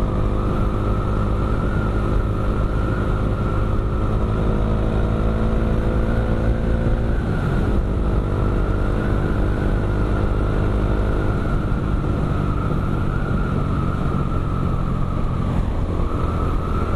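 Bajaj Dominar 400's single-cylinder engine running under way through an aftermarket Akrapovic M1 exhaust, a crisp, bassy note. The pitch climbs gently, dips briefly about seven and a half seconds in, then holds steady.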